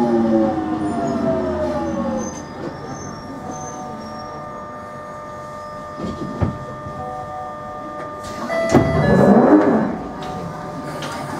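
London Underground 1996 Tube Stock train's traction motors whining down in pitch as it brakes to a stop, which dies out about two seconds in. Then the stopped train's steady equipment hum, with a click about six seconds in and a brief louder rattle near nine seconds.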